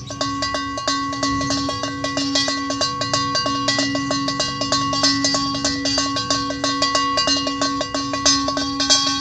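Large brass cow bell (klontongan sapi, size no. 6) with a wooden clapper, shaken by hand so the clapper strikes it rapidly, several times a second. It rings continuously with a steady low tone.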